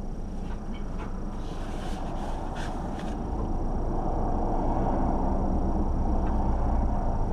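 Car engine and road noise heard from inside the vehicle, growing louder about halfway through as it speeds up, with a few light knocks in the first few seconds.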